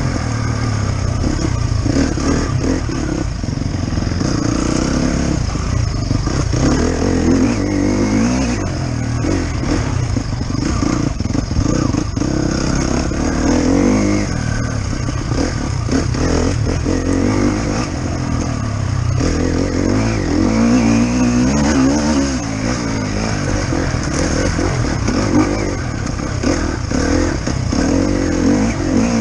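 Enduro motorcycle engine being ridden hard on a rough dirt trail, revving up and dropping back over and over as the throttle is worked, with knocks and clatter from the bike over the bumps.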